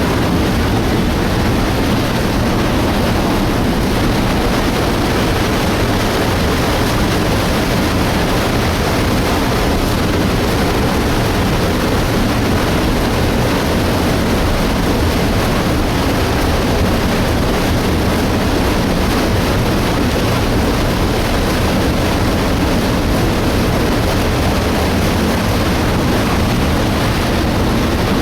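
Illgraben debris flow: a loud, steady rushing of mud, water and rock pouring down the torrent channel, heaviest in the low range, with no pauses or separate knocks.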